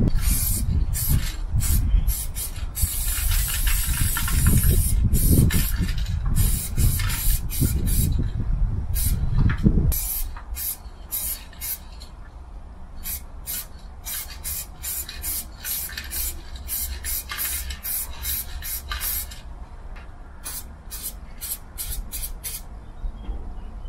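Aerosol spray paint cans hissing in many short bursts and a few longer sprays. A low rumble runs under the first ten seconds and drops away suddenly about ten seconds in.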